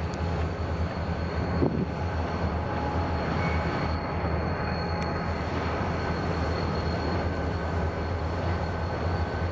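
A pair of EMD SD40-2 diesel locomotives, each with a 16-cylinder two-stroke engine, pulling a train under power as it approaches, with a steady low engine drone.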